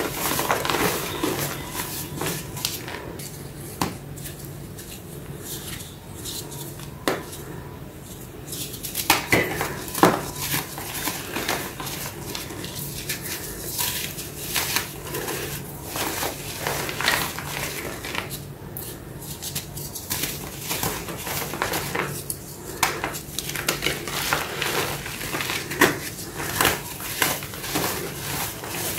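Reformed gym-chalk blocks filled with black paste crunching and crumbling as they are squeezed and broken apart by hand, an irregular run of dry crackles with a few sharper snaps as chunks break.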